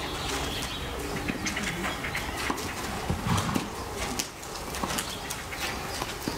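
Chestnut horse walking and turning loose on arena sand, its hooves making soft irregular steps, with a short louder low sound about three seconds in. Birds chirp in the background.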